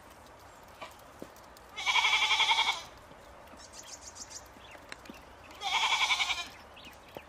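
Goat bleating twice: two loud, quavering calls of about a second each, the first about two seconds in and the second near six seconds in.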